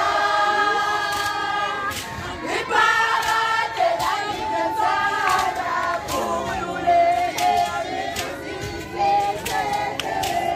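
A group of women and girls singing a Zulu song together without instruments, with sharp claps through it.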